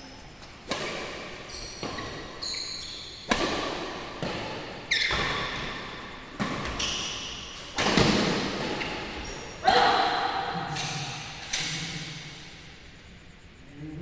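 Badminton rackets smacking a shuttlecock in a rally, a sharp hit about every second, each ringing on in the echo of a large hall. Short high squeaks, typical of court shoes, come between the hits.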